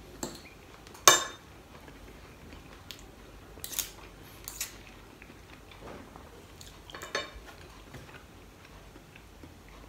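Knife and fork clinking and scraping on a plate while cutting meat: a handful of sharp clinks, the loudest and most ringing about a second in.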